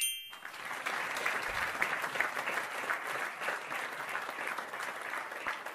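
Applause sound effect rewarding a correct answer, a dense patter of clapping that cuts off abruptly near the end. It opens with a short rising chime.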